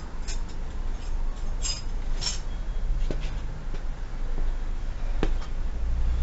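Metal hand tools clinking: a spanner being handled and fitted to a nut, giving half a dozen separate sharp clinks and taps over a steady low hum.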